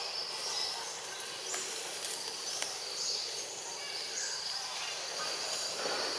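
Tropical forest ambience: short high-pitched chirping calls of insects repeat every second or so over a steady hiss, with a few faint clicks.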